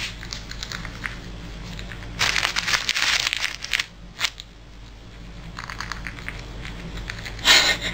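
Pallas's squirrel gnawing at a plastic bread bag and eating the bread: small chewing clicks, with loud bursts of plastic crinkling and tearing a couple of seconds in and again, loudest, near the end.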